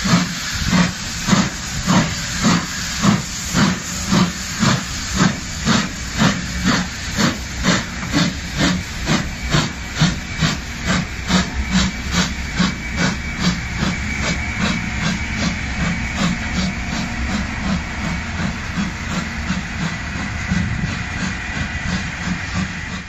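Steam locomotive pulling away under power, its exhaust beating in a steady chuff-chuff that quickens as the train gathers speed. The beats grow fainter in the second half as the engine draws off.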